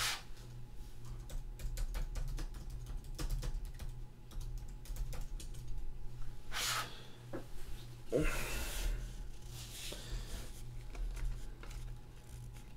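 Clicking keystrokes on a computer keyboard, an irregular run of light taps, with a couple of short breathy bursts of stifled laughter partway through.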